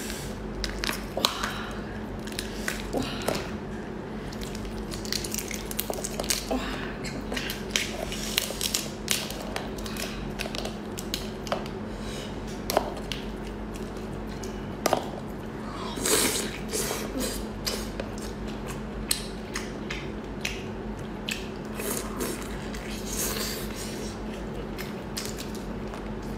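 Close-up eating sounds from a large cooked tiger prawn in thick spicy sauce. Its shell and meat are pulled apart by hand with wet squishing and many sharp clicks and crackles, along with chewing, over a faint steady hum.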